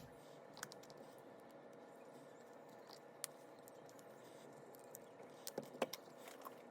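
Near silence: room tone with a few faint, short clicks and taps scattered through it, a cluster of them about five and a half seconds in.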